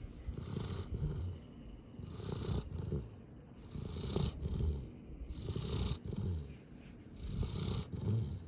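Snoring in a steady rhythm: five low, rattling breaths, about one every one and a half to two seconds.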